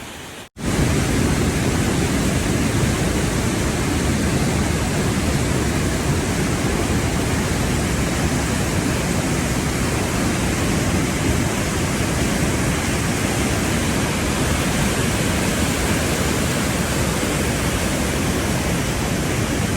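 Waterfall: a steady, loud rush of falling water, starting after a brief break about half a second in.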